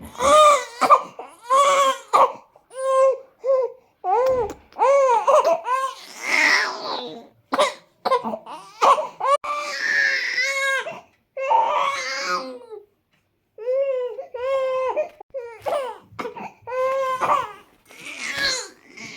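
Infant crying in a string of short cries, each arching up and down in pitch, with quick breaths between and a brief pause about two-thirds of the way through.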